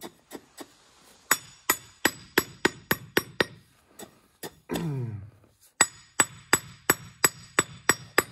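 A steel paving hammer strikes small granite setts in quick ringing blows, about three a second. The blows come in two runs, with a pause about halfway through that holds a short falling pitched sound.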